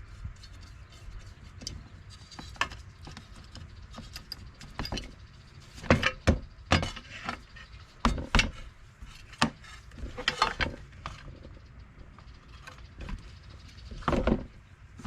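Irregular clicks, taps and knocks of hand work on a workbench while paint stripper is laid on heavily over a WWII entrenching tool, with louder knocks about six, eight, ten and fourteen seconds in.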